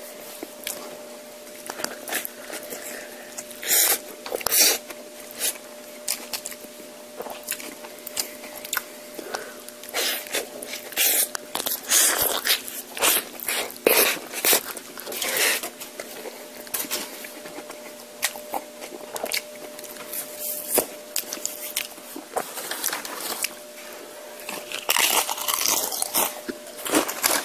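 Close-miked chewing with irregular loud crunches, typical of biting into and chewing tortilla chips, over a faint steady hum.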